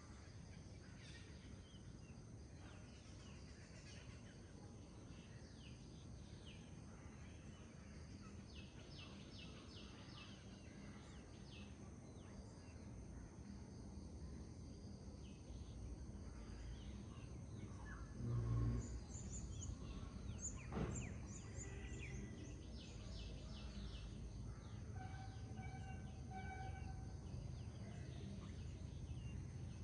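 Several birds singing and calling in short, quickly repeated notes over the steady low rush of a forest river. A single low thump stands out about two-thirds of the way through.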